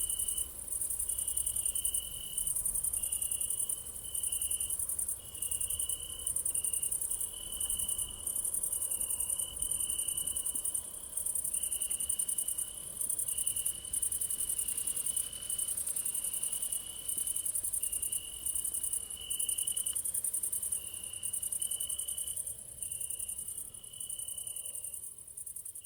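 Crickets chirping in a steady night chorus: a high, pulsing chirp about once a second, over a lower, repeated trill. The chorus fades out near the end.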